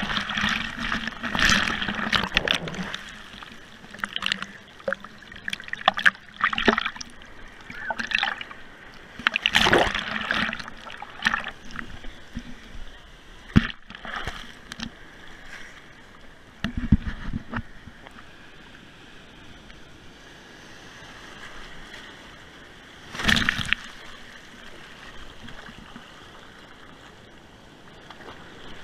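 Breaking surf and whitewater washing and splashing over a GoPro at the water's surface, in irregular bursts of splashing with calmer stretches of washing foam between.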